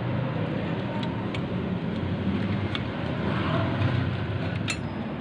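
A motor vehicle's engine running steadily, with a few light clicks or knocks over it.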